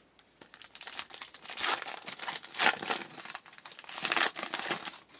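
Trading card pack wrapper being torn open and crinkled by hand, in uneven rustling bursts with a few louder crackles.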